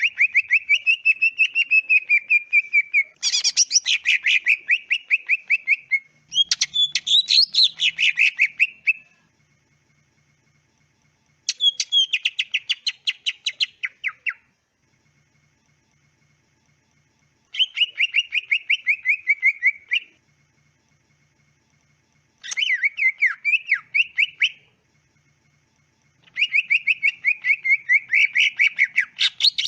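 Cucak ijo (green leafbird) singing in bouts of rapid, repeated chirping notes, each bout two to three seconds long, with short pauses between them.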